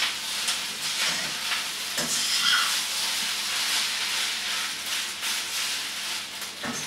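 Fried rice sizzling in a hot wok as it is stir-fried, with a spatula scraping and knocking against the pan now and then.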